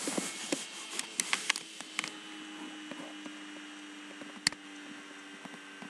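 Quiet room tone with a steady electrical hum, broken by a few sharp clicks between one and two seconds in and one louder click about four and a half seconds in.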